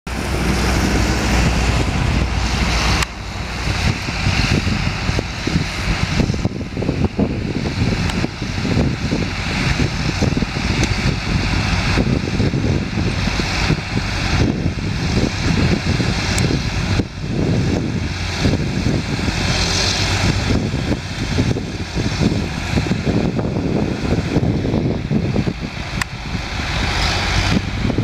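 Steady low vehicle and engine rumble with wind buffeting the microphone, and a faint steady high whine running above it.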